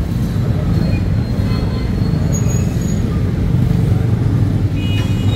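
Steady, loud low rumble of busy street noise, traffic-like, with indistinct voices mixed in and a few faint short high-pitched tones.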